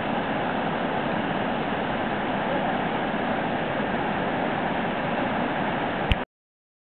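Steady rush of river water pouring over a low weir and churning in the white water below it. About six seconds in there is a click and the sound cuts out to silence.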